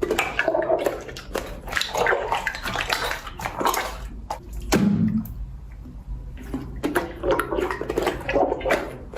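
Slime being squeezed and worked by hand: wet squelching with quick, irregular clicks and pops, in uneven bursts with short lulls.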